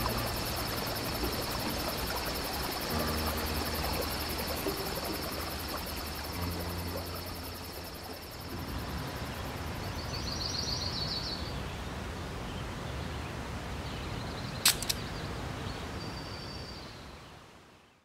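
Outdoor ambience of insects droning steadily at a high pitch, under faint low sustained music notes in the first half. A short pulsing chirp comes about ten seconds in and a sharp click near fifteen seconds, then the sound fades out.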